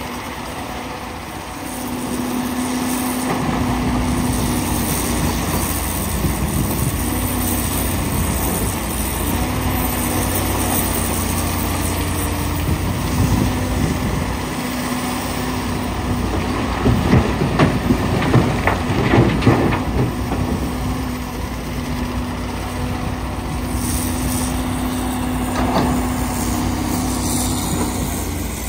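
Komatsu PC450LC hydraulic excavator's diesel engine working under load, with a steady low hum that comes up about two seconds in. About two-thirds of the way through comes a burst of clattering rock, and near the end a shorter one.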